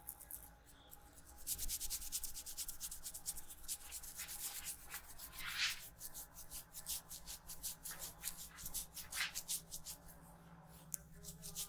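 Hands rubbing briskly over hair and scalp in a head massage: fast, rhythmic scratchy strokes, several a second, starting about a second and a half in and easing off near the end.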